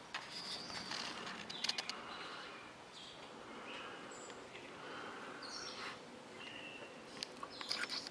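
Birds chirping: short, high calls scattered every second or so over a steady outdoor hiss. A quick cluster of sharp clicks comes about a second and a half in, and again near the end.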